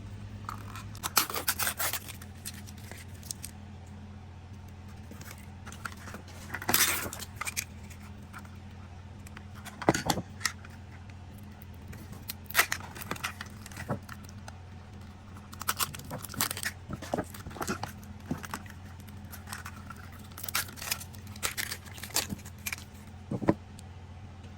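Plastic Mini Brands toy capsules being handled and opened: irregular clicks and rattles of plastic, with crinkling and tearing of the wrappers. A steady low hum runs underneath.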